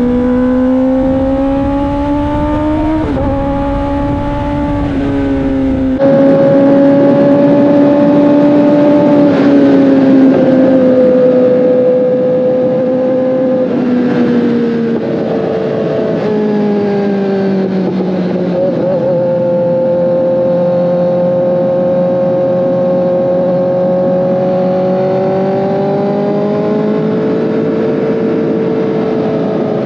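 2024 Kawasaki ZX-10RR's inline-four engine running under way, its pitch rising and falling gently with the throttle and stepping a few times as the gears change. Low rumble, likely wind, is heard for the first several seconds and then cuts off suddenly.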